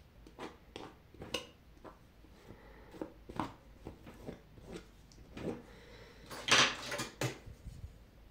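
Metal palette knife scraping and tapping as it spreads and textures modelling paste on a canvas: a string of short scrapes and taps, with one longer, louder scrape late on.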